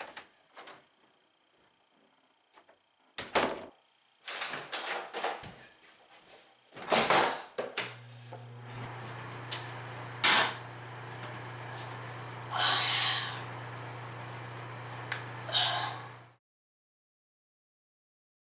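A door opening and closing, with sharp knocks about three, seven and ten seconds in. From about eight seconds in, a steady low hum with a hiss runs until it cuts off suddenly, leaving silence for the last two seconds.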